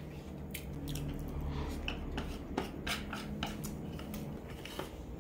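Wooden chopsticks clicking and scraping against a plate in short, irregular taps while picking up the last black bean noodles.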